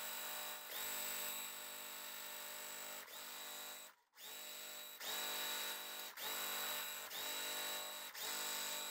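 Juki TL-2200 QVP Mini sewing machine running, stitching a seam through quilt fabric in several steady runs with short pauses, stopping completely for a moment about four seconds in.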